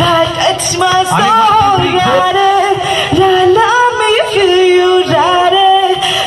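Music with singing: a singer's melody of long, bending held notes over an accompaniment.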